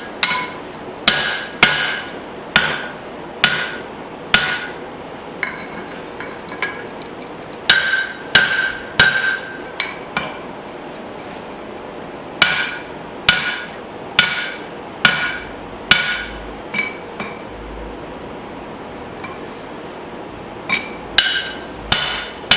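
Hand hammer striking a hot spring-steel hatchet head on an anvil, blacksmith forging blows about one a second with short pauses, each strike leaving a brief metallic ring.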